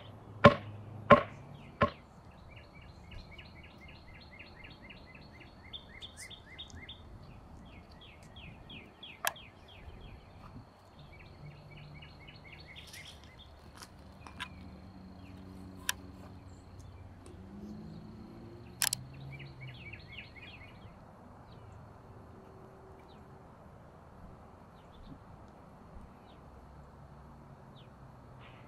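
A wooden stake being driven into the ground: four sharp knocks in about two seconds. After that, a bird's rapid high trills repeat over the quiet outdoor background, with a few faint clicks.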